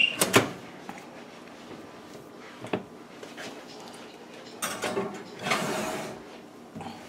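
Open Maytag Gemini oven being handled: a couple of sharp metallic clicks near the start, single knocks about three seconds in and near the end, and a short rushing scrape around the middle.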